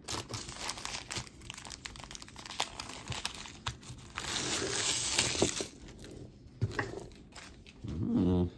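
Jewelry being handled: small clicks of beads and metal pieces, with a crinkling sound lasting about a second and a half near the middle.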